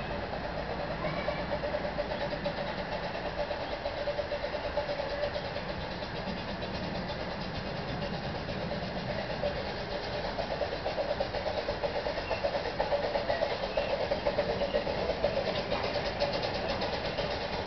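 An engine running steadily, growing louder over the last few seconds with a fast, even beat.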